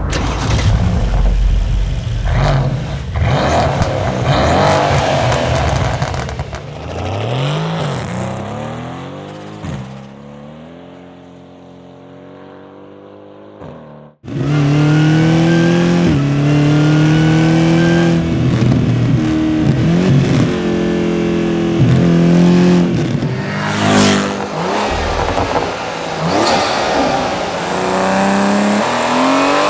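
European muscle car engines at full throttle in a sequence of edited recordings: revving and accelerating hard, the pitch rising and then falling back at each gear change. About 14 seconds in the sound cuts abruptly to another car pulling loudly through its gears.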